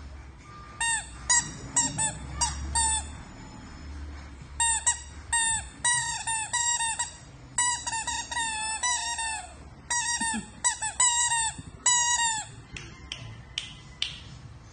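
Pink rubber squeaky basketball toy squeaking as a Maltese–Shih Tzu puppy chews it: runs of short squeaks, about three a second, with a break about three seconds in and stopping near the end.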